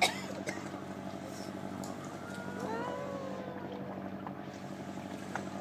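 A boat's machinery humming steadily, with a sharp click right at the start.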